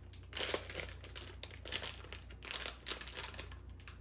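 A blind-box toy's pink wrapper crinkling and crackling in irregular bursts as hands tear it open and pull the vinyl figure out.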